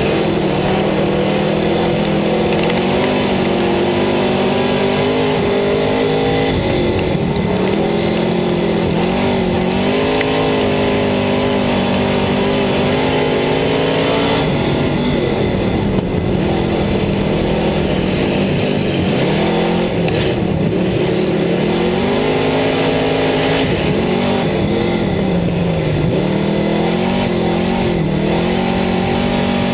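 Sport mod race car's V8 engine heard from inside the cockpit at racing speed, its pitch repeatedly climbing on the straights and dropping as the driver lifts for each turn of the dirt oval, about every four to five seconds.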